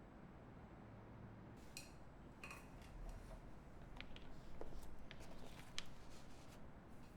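A few sparse, irregular keystrokes on a mechanical keyboard with lubed Boba U4T tactile switches, brass plate and GMK keycaps: light clacks that start about two seconds in and come a little more often toward the end.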